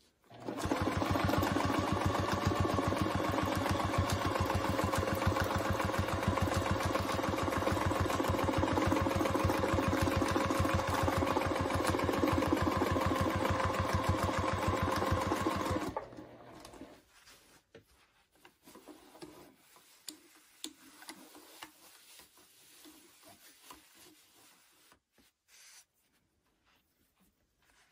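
Sewing machine stitching free-motion quilting at a steady speed: rapid, even needle strokes over a motor hum. It starts about half a second in and stops abruptly about sixteen seconds in, leaving faint rustling and clicks.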